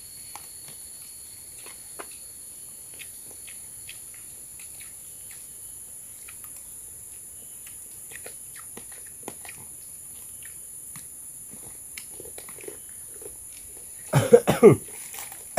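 Steady high-pitched insect drone, typical of crickets, with faint scattered small clicks and taps. Near the end, a short loud burst of a person's voice.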